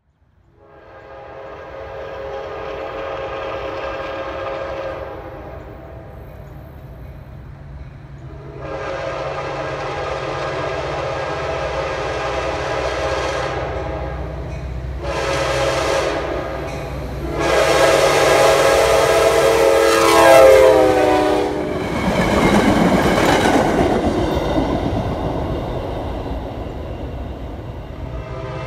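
Diesel commuter train's horn sounding the grade-crossing signal of long, long, short, long, over the low rumble of the locomotive. The last blast drops in pitch as the train passes, and the rush and rumble of the passing train follows.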